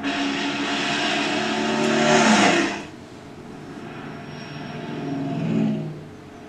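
A Pontiac Trans Am's V8 engine passing at speed, its pitch dropping sharply as it goes by about two and a half seconds in. A second, quieter car engine then swells and fades past near the end.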